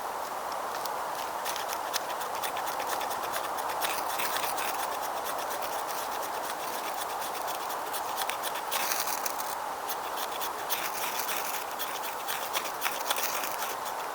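Dry silver birch bark scratching and crackling as it is handled to light a campfire, many small sharp clicks over a steady hiss, busiest about two thirds of the way in.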